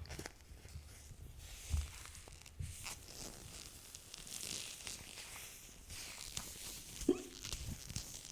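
A woman hiccuping close to the microphone: several short sudden hiccups with soft breathing between, the sharpest about seven seconds in with a brief voiced "hic".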